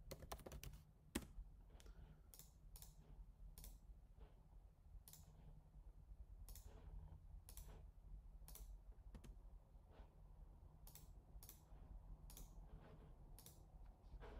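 Faint, irregular clicks of a computer mouse and keyboard being worked, roughly one every second, over a low steady hum.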